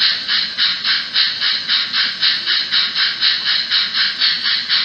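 Model BR 18 steam locomotive's sound decoder playing rhythmic steam chuffs, about four to five a second, in time with the smoke unit puffing from the chimney as the locomotive runs in place on a roller stand.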